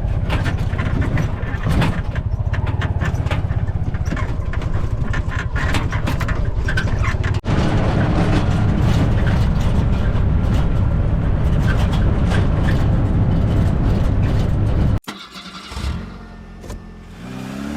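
A vehicle's engine running while on the move, a loud steady low rumble with rattling and buffeting over it. It drops suddenly to a much quieter sound about fifteen seconds in.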